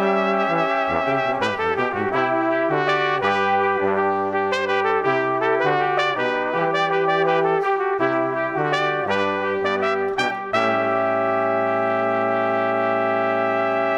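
Instrumental background music of held, changing chords, settling on one long chord about ten and a half seconds in.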